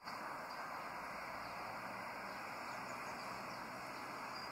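Faint, steady outdoor background hiss with no distinct events.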